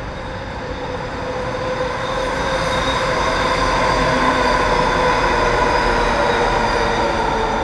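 SkyTrain metro car, a linear-induction-motor train, passing on the elevated guideway. It gives a steady, pitched whine over wheel and rail noise, growing louder to a peak in the middle and easing slightly near the end.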